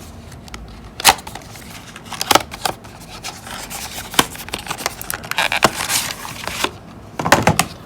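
Phone case packaging being opened by hand: a few sharp clicks and snaps, with stretches of scraping and rustling.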